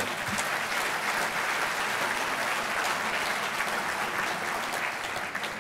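Audience applauding, a steady mass of clapping that thins out near the end.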